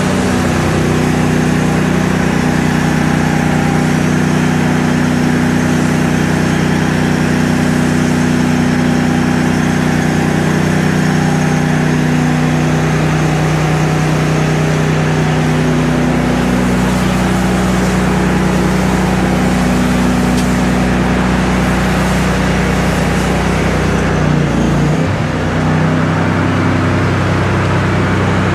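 Pressure washer's petrol engine running steadily under load, with the hiss of the spray over it. Its pitch shifts slightly about halfway through and dips briefly near the end.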